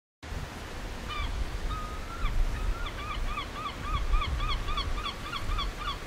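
Gull calling: two drawn-out notes, then a rapid laughing series of short arched calls at about three a second, over a low rumble.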